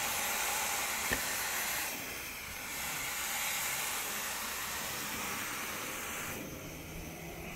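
Water spraying hard from a garden hose, a steady hiss that drops off sharply near the end. There is a small knock about a second in.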